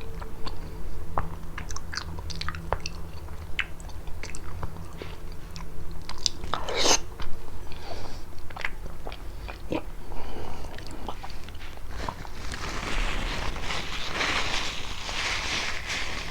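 Close-miked chewing and biting of prickly pear fruit: short wet clicks and crunches from the fruit's hard seeds, with one louder crunch about seven seconds in. In the last few seconds a steady rustling noise takes over.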